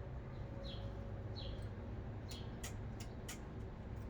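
Faint short falling chirps, much like a small bird calling, repeating about once a second over a steady low hum, with a few light clicks in the middle.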